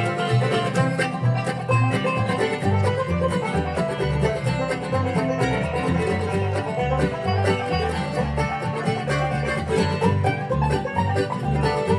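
Live acoustic bluegrass band playing, with rapid banjo picking over guitar and a plucked upright bass keeping the beat.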